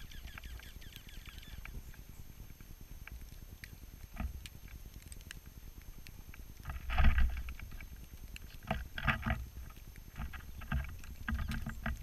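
A flock of small birds feeding close to the microphone: a quick series of chirps fades out in the first second and a half, then comes short, loud rustling flutters, loudest about seven seconds in and again around nine and eleven seconds.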